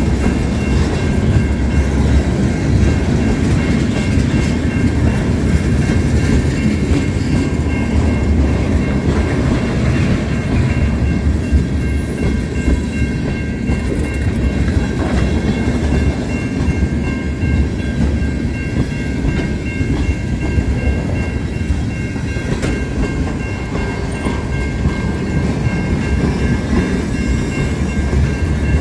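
Freight train of tank cars rolling past: a steady, loud rumble of steel wheels on rail, with a few thin, steady high ringing tones above it.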